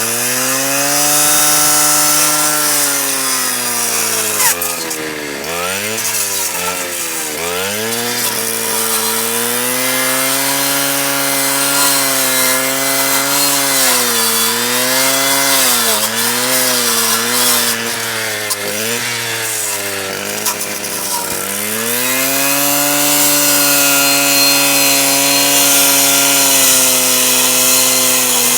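STIHL KA 120 R cordless cut-off saw running with a circular blade fitted with chainsaw teeth, cutting. The motor's steady whine sags in pitch several times as the blade bites under load and then recovers, with a rough hiss over the top.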